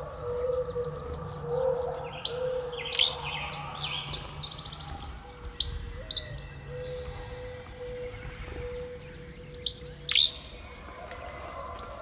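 Dawn chorus of songbirds: many overlapping chirps and trills, with loud, sharp down-slurred notes twice near the middle and twice near the end. A steady low tone runs beneath.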